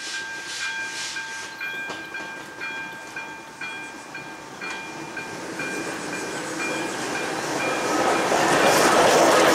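Steam locomotive 423 094 approaching on the line, its exhaust beating about twice a second over a steady high tone. It grows steadily louder, reaching full strength about eight seconds in.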